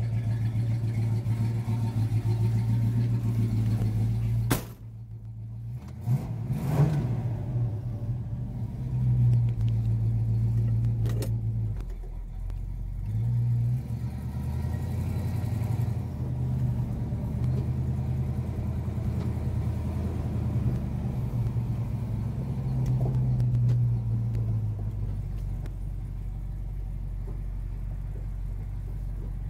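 1969 Dodge Super Bee's 383 V8 running through its dual exhaust as the car is driven, heard from inside the car. The sound cuts off briefly about four and a half seconds in, then the engine note rises and falls with the throttle.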